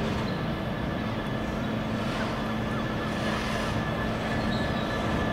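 Railway locomotive running steadily, a constant drone with an unchanging low pitched tone.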